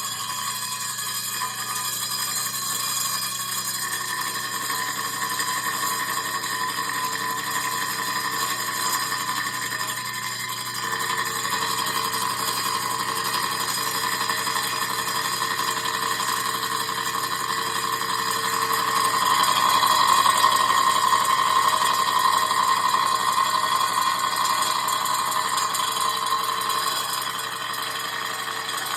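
Milling machine driving a slitting saw through an intercooler, a steady, loud, ringing whine made of several pitches. It swells louder for several seconds about two-thirds of the way through.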